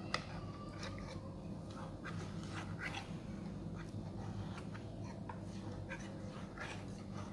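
Faint scraping and light clicks as a knife is worked around the edge of set jelly in a metal bundt pan to loosen it, over a steady low hum.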